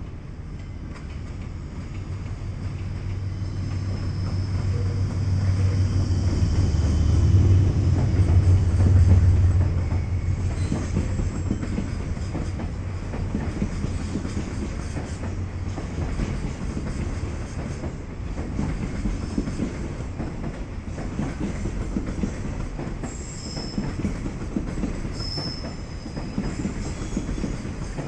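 JR Freight DF200 diesel-electric locomotive passing with a container freight train. The engine's low rumble builds and peaks about eight seconds in as the locomotive goes by, then gives way to the steady rumble and rhythmic wheel clatter of the wagons. Brief high wheel squeals come near the end.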